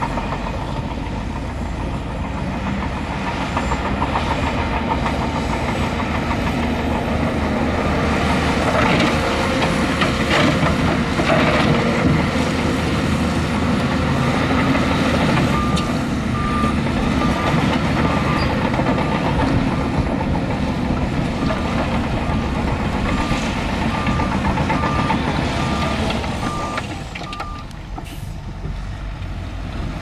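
Heavy earthmoving machinery working: a diesel engine runs steadily, with a cluster of clanks a third of the way in. A backup alarm beeps at a steady pace from about halfway through until near the end.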